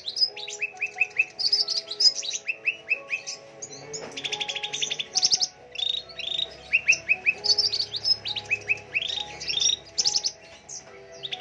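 Small birds chirping in quick runs of short, high repeated notes, the runs following one another throughout.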